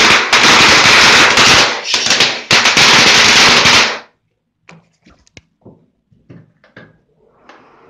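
Phantom fountain firework spraying sparks with a loud, dense crackling hiss that breaks off briefly near two seconds and then stops suddenly about four seconds in as the fountain burns out. A few faint ticks follow.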